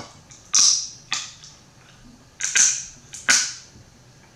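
Close-up eating sounds of snow crab legs: four sharp, loud eating noises about a second apart, each trailing off quickly.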